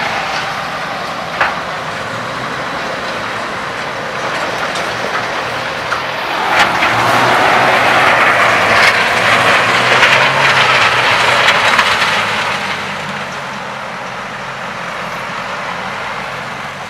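Truck engine running steadily. In the middle, for about six seconds, a louder rushing noise builds and then fades, with a few sharp knocks.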